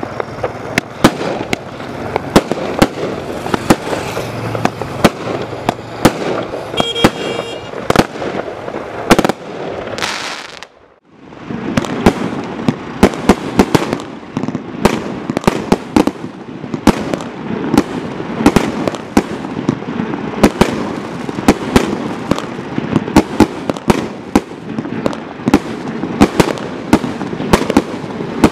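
Two 1.3G firework barrage cakes, Primed Pyrotechnics' Casino and then Roll the Dice, each firing a fast, dense run of sharp shots and bursts. The firing stops briefly about ten seconds in, then the second cake starts up.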